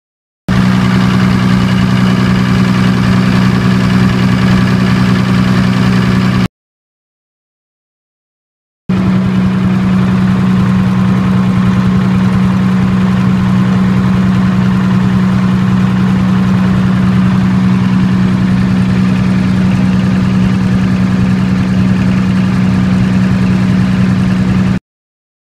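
Diesel generator engine running steadily under a constant note on diesel fuel alone. The sound cuts off abruptly about six seconds in, returns a couple of seconds later, and cuts off again near the end.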